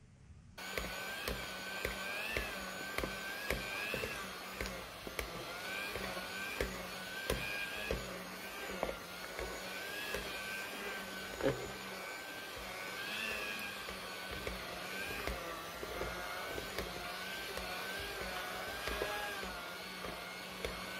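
Electric hand mixer with twin dough hooks kneading bread dough in a bowl. It starts about half a second in and runs steadily, its motor whine wavering up and down in pitch as the hooks drag through the stiff dough. Occasional light knocks come through.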